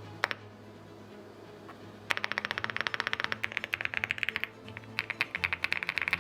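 Mechanical keyboard keystrokes in two fast runs of dense clicks, over background music.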